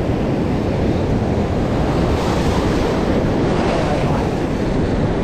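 Surf washing and breaking over shore rocks, with wind buffeting the microphone; the wash swells louder for a second or so about two seconds in.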